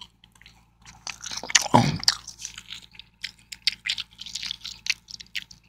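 Close-miked chewing of a bite of homemade breaded chicken tender: irregular clicks and smacks of the mouth, starting about a second in. A short low vocal hum comes at about two seconds.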